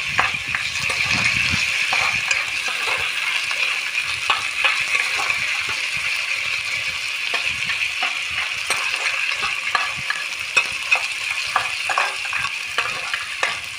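Onions and ginger-garlic paste sizzling in hot oil in a pan, a steady hiss. Irregular scrapes and taps sound as the mixture is stirred against the pan.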